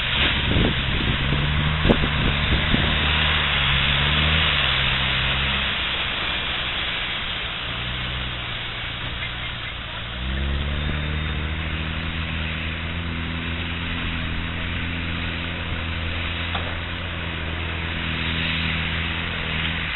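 Land Rover engine labouring through deep mud and water, its revs stepping up and down, then rising sharply about ten seconds in and held high, over a steady hiss.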